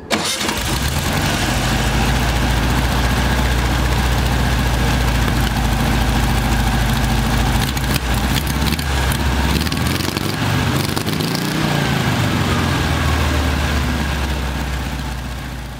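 VW 36 hp 1200 cc air-cooled flat-four engine running at a steady idle, coming in abruptly. About ten seconds in the engine speed wavers, dipping and rising as the carburetor throttle is worked by hand, then settles back to idle.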